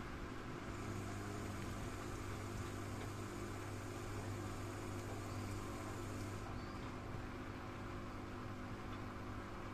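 Edesa front-loading washing machine on its final spin, the motor turning the laundry-filled drum slowly: a steady hum with a high whine that stops about six and a half seconds in.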